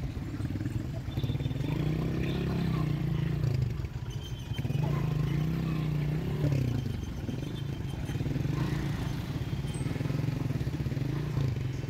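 Busy street traffic, with a motor engine running close by whose pitch rises and falls every second or two as it moves through slow, stop-and-go traffic.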